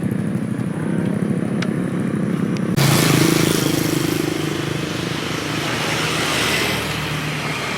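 A small engine running with a fast, even putter. About three seconds in the sound cuts abruptly to a louder, hissier mix with a steady hum.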